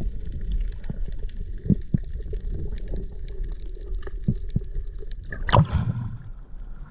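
Underwater action-camera audio: a low rumble of water against the housing with scattered clicks and gurgles under a faint steady hum. About five and a half seconds in, a loud short splashing burst as the camera breaks the surface.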